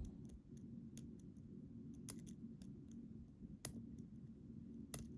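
Small metal clicks from the last threaded part of a reassembled pin-tumbler challenge lock being tightened by hand until it stops. The clicks are sharp and irregularly spaced, the clearest about two, three and a half, and five seconds in, over a faint steady low hum.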